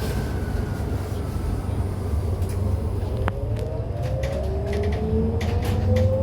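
Electric bus drivetrain whine falling in pitch as the bus slows, then a new whine rising in pitch as it pulls away again about halfway through, over a steady low road rumble. A few sharp clicks sound in the second half.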